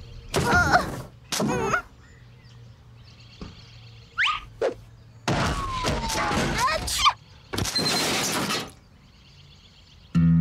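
Cartoon sound effects of household objects such as a chair and a computer monitor tossed through the air and landing: a series of loud thuds and crashes, the longest between about five and nine seconds in. A children's tune starts just before the end.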